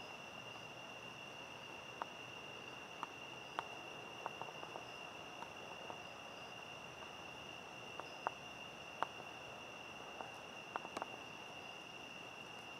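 Crickets trilling faintly in one steady, high, unbroken tone, with a few small clicks scattered through.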